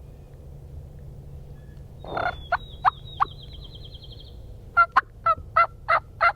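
Wild turkey calls. A burst with three quick notes comes about two seconds in, then a run of seven evenly spaced loud notes near the end, about three a second. A small bird trills steadily in the background around the first calls.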